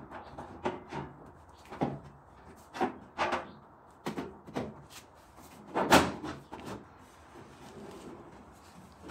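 Roll pan being fitted to the back of a pickup, clunking and knocking against the truck's rear as it is pushed into position: a string of irregular knocks, the loudest about six seconds in.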